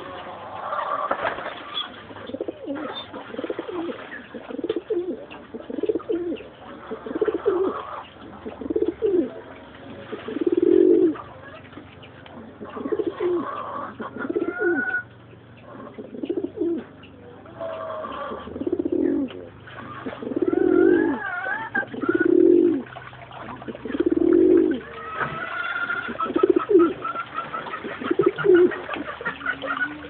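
Caged pigeons cooing over and over, a low call roughly every second or two, with a few higher chirps now and then.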